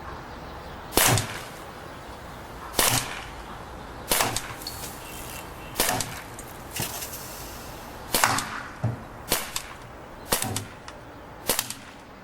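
Crosman T4 CO2 pistol firing .177 pellets semi-automatically: about eight sharp shots, one every one to two seconds, with some followed by smaller knocks.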